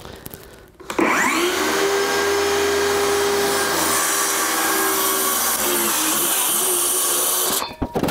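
Corded DeWalt circular saw starting up about a second in with a rising whine, then running steadily as it cuts straight through a plywood subfloor panel. The sound stops suddenly near the end.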